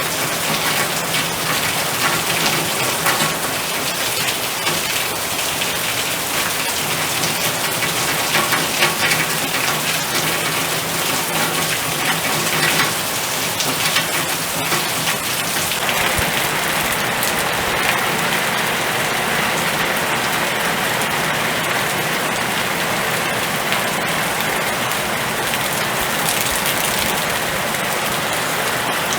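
Storm rain pouring steadily, a dense hiss of drops on surfaces. A little past halfway the sound turns smoother and more even.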